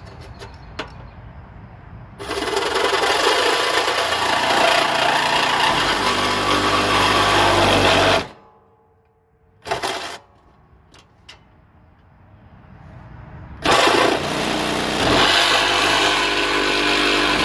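Milwaukee M12 Fuel Hackzall reciprocating saw cutting into a riding mower's plastic hood. It runs for about six seconds, gives a short burst a couple of seconds after stopping, then starts again for the last few seconds.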